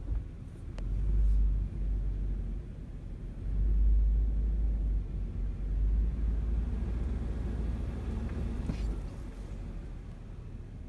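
Low rumble of a car heard from inside the cabin, swelling and fading several times, with a short sharp click about a second in.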